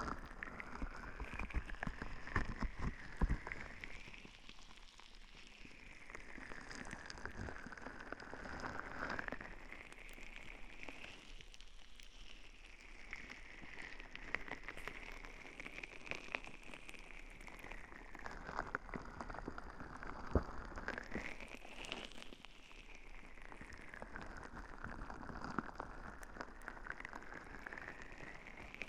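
Slow crackly rubbing right against the ear microphone during an ASMR ear massage, sweeping up and down every few seconds, over a steady rain hiss.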